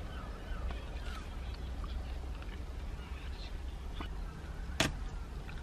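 Quiet car interior with a few faint sticky clicks as a bubble-gum bubble bursts and the gum is peeled off the face, and a sharper click near the end.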